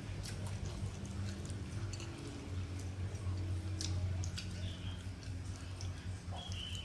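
Close-up chewing and mouth sounds as rice and sambal are eaten by hand, with fingers squishing rice against a plate, heard as scattered small clicks and squelches over a low hum. A short high chirp comes about two-thirds through and again near the end.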